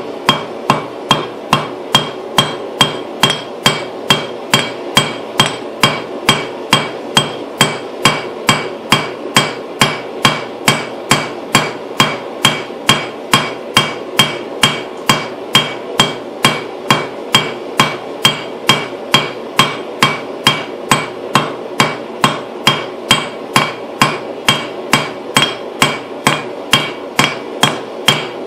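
Hand hammer striking hot steel on an anvil in a steady rhythm, about two and a half blows a second, each blow ringing briefly, as small round stock is drawn down thinner. A steady rushing of the running forge sits underneath.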